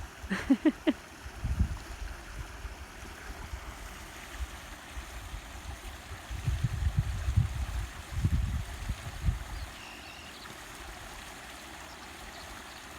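Small waterfall running steadily over slate steps, splashing and trickling, with a few low rumbles in the middle.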